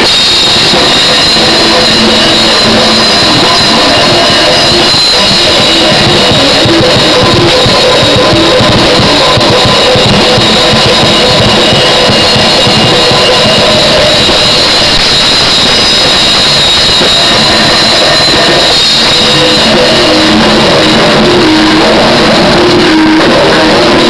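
Instrumental metalcore played by a full band with no vocals: electric guitars, bass guitar and drum kit playing continuously. The recording is loud, near full scale throughout, and overloaded.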